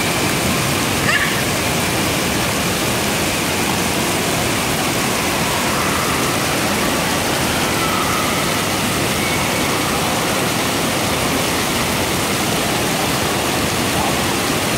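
Steady rushing and splashing of water from splash-pad fountain jets and the surrounding indoor water park.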